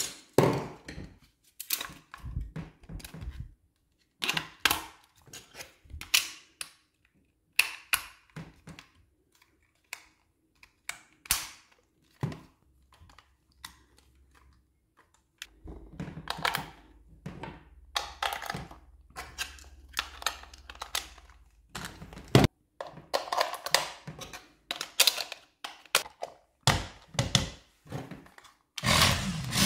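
Hard plastic of a toy RC remote and its batteries being handled: scattered clicks, taps and knocks with short quiet gaps, as batteries go in and the battery cover is fitted. Near the end there is a longer, busier stretch of clatter.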